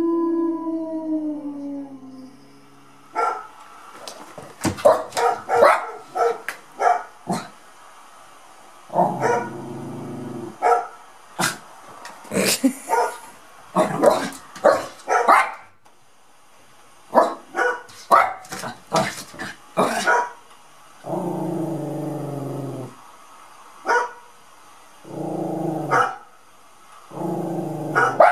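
Small dog barking and yipping in rapid strings, with several long, low growl-like calls of a second or two in between.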